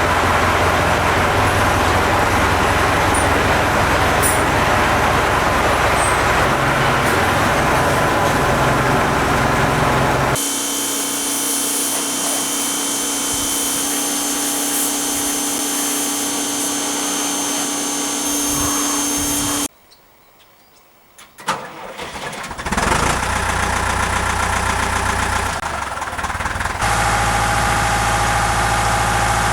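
Tractor engine running, in several cut-together takes with hard changes in sound. It breaks off for about two seconds partway through, then runs again.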